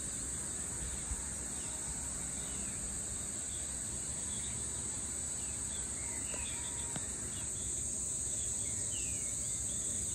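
Steady high-pitched insect chorus, with a bird giving a few short falling calls now and then.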